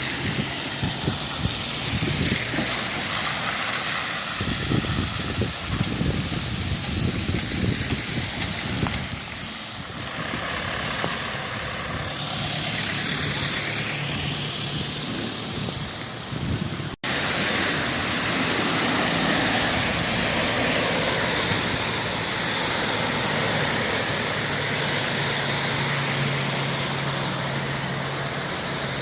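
A motor vehicle's engine running, with an uneven low rumble in the first half. After a sudden break about 17 seconds in, a steady engine hum.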